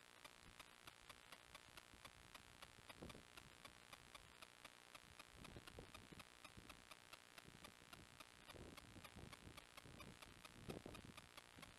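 Near silence: a faint, steady ticking about four times a second, with soft low rustles now and then.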